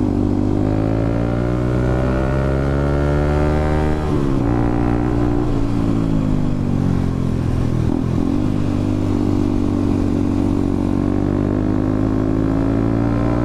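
Motorcycle engine pulling under load up a steep climb. The revs rise, drop briefly about four seconds in and again near eight seconds, then hold steady.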